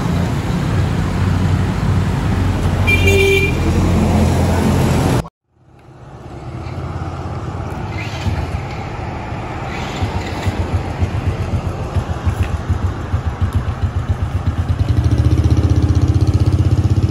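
Street traffic with small motorbike engines running close by, and a short vehicle horn toot about three seconds in. The sound cuts out for a moment just after five seconds. It comes back quieter, and near the end a steady engine grows louder.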